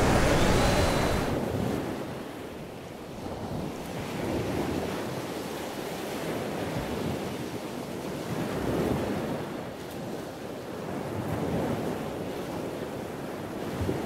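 Atlantic surf breaking: a rushing wash of water that swells and ebbs every few seconds. Wind buffets the microphone in the first second or so.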